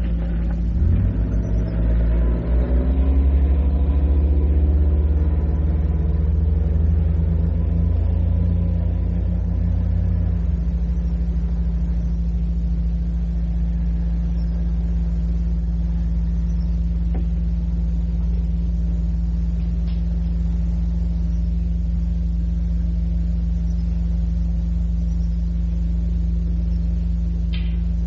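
A motor vehicle's engine running close by, rising in pitch as it accelerates over the first few seconds and dropping away about ten seconds in, over a steady low hum on an old cassette recording.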